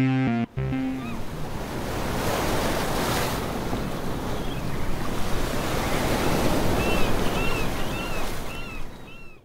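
Ocean surf washing steadily after a music track cuts off in the first second. Near the end a run of short chirps, about two a second, sounds over the surf before it fades out.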